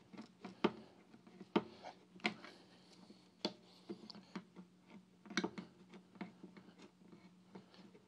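Swiss Army knife can opener rocked around the rim of a tin can, each stroke biting through the lid with a sharp metallic click, irregularly about once a second.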